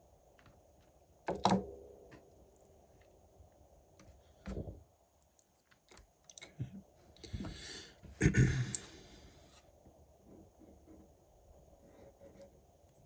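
Scattered light clicks and taps from small tools and battery parts being handled on a repair bench, with a sharper knock about a second and a half in and another near the middle, and a short rustle shortly after the middle.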